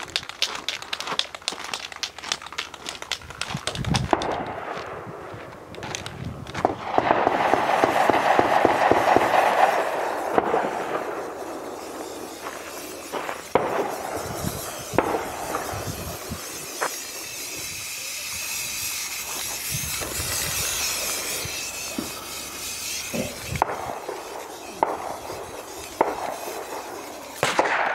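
Aerosol spray-paint can hissing as white paint is sprayed over a rubber dummy target, in a louder stretch about seven seconds in and then a longer, higher hiss. Footsteps on dirt and gravel and scattered clicks run through it.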